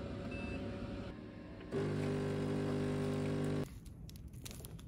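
Automatic touchscreen coffee machine running with a steady hum that starts about two seconds in and cuts off about two seconds later. After it comes faint crinkling of aluminium foil being handled.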